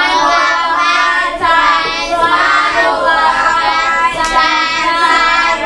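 A group of children's voices singing together, a continuous chorus with wavering pitch and no pause.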